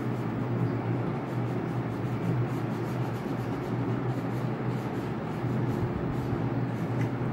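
Wax crayon scratching on paper in repeated strokes as an area is coloured in, over a steady low hum.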